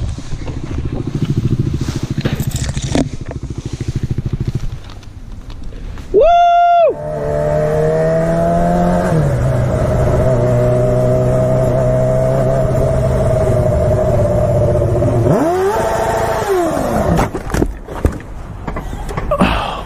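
Wind rush and knocks on a helmet camera, then a short, very loud whine that rises and falls in pitch. A sport motorcycle's engine runs steadily in traffic, drops a gear's worth in pitch, revs up and back down once, and then hits a car: sharp knocks and scraping as the bike crashes.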